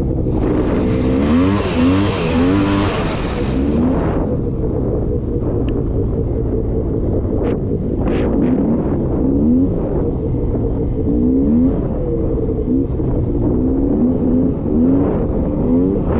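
Polaris Scrambler 400 two-stroke ATV engine running on a trail, its pitch rising and falling repeatedly as the throttle is worked. A loud rushing noise rides over it for about three seconds near the start, and a few sharp knocks come later.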